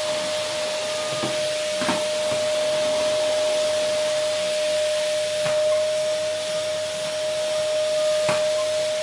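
Vacuum cleaner running steadily: an even rush of air with a constant whine, and a few faint ticks.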